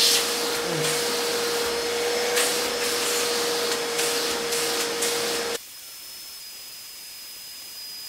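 Shop vacuum running at full power, drawing air through a homemade cyclone separator on a plastic barrel: a steady motor whine over rushing air, with several brief louder surges. About five and a half seconds in the sound cuts off abruptly, leaving a quieter hiss with a faint high whine.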